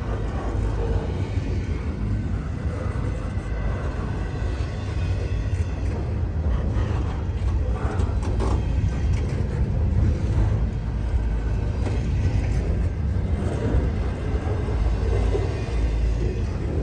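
Freight train rolling slowly past: a steady low rumble of wheels on rail, with occasional clanks and creaks from the cars.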